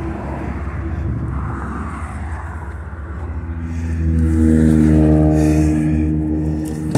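A passing motor vehicle's engine drone that builds from about three seconds in, is loudest around five seconds and then eases off, over a steady low rumble.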